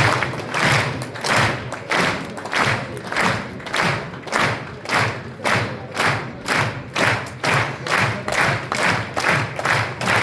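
A crowd clapping together in rhythm, the claps gradually speeding up: a clap-along building suspense before a show result is announced.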